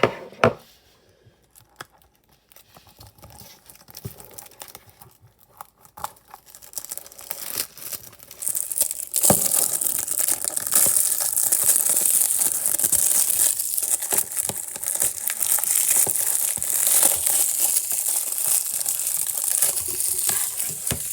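Plastic shrink-wrap being torn and peeled off a Blu-ray case: small clicks and rustles at first, then from about nine seconds in a loud, continuous crinkling.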